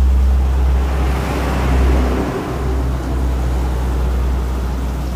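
Steady low rumble of road traffic, with a passing vehicle swelling and fading over a couple of seconds, about a second in.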